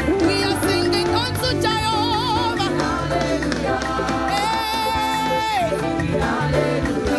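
Upbeat gospel praise music with singing over a band, with a steady bass line and held, wavering melody notes.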